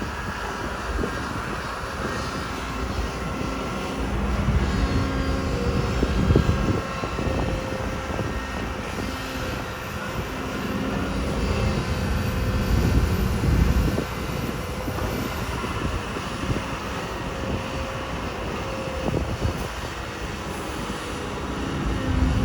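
Kobelco SK250 excavator's diesel engine running under load, swelling louder and easing off a few times as the machine works.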